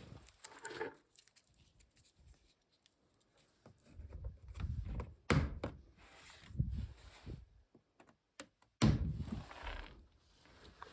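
Scattered thunks and clicks of hands working on a car door, parts handled and knocked, with sharp knocks about five and nine seconds in and quiet gaps between.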